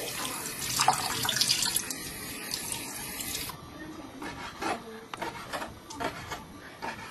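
Kitchen tap running as cut squid is rinsed under it to wash off leaked ink; the water shuts off about three and a half seconds in, and a few light knocks of handling follow.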